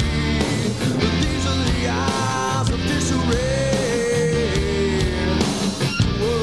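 Rock music playing at a steady, fairly loud level, with sustained notes that bend in pitch.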